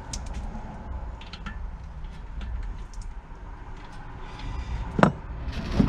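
Light metallic clicks and clatter of hand tools and engine parts being handled during an engine teardown, over a steady low rumble, with two sharp louder knocks near the end.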